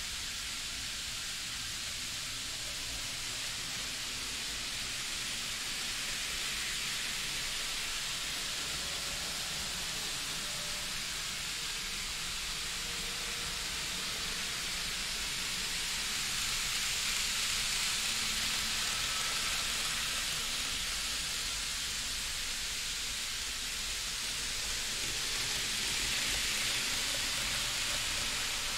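N gauge model trains running on the layout's track: a steady whirring hiss that swells twice as a train passes close, about halfway through and again near the end.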